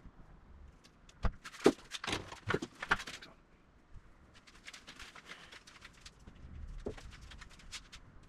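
A few sharp clicks and taps in the first three seconds, then a felt-tip marker scratching and squeaking in short strokes on metal while bolt-hole positions are marked out.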